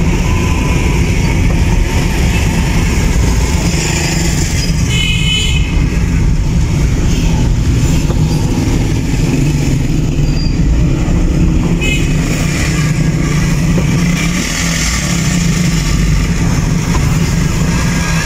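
Steady low rumble of a car driving in dense city traffic, heard from inside the car. A vehicle horn sounds briefly about five seconds in and again, shorter, about twelve seconds in.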